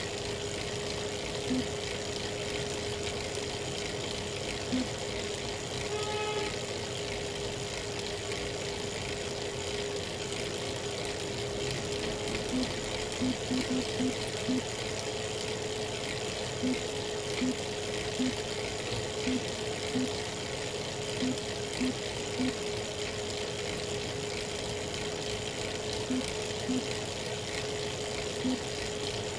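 Elite Real Turbo Muin B+ bike trainer running under a rider with a steady whine, broken by short cracking clicks at irregular intervals, a few early and many more from about the middle on. The owner reports this cracking at any cadence once power goes over 200 watts.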